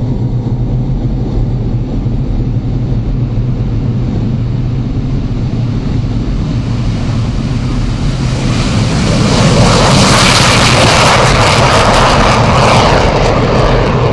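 MiG-29's twin RD-33 turbofan engines at full afterburner on the takeoff run, a steady low drone. About eight seconds in, a loud rushing jet noise swells, holds for several seconds and eases off near the end.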